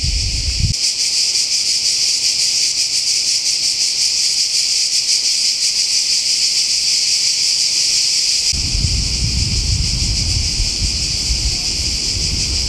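Chorus of cicadas shrilling steadily, a loud, dense high buzz with a fast pulsing texture. Wind rumbles on the microphone for the first second and again from about two-thirds of the way in.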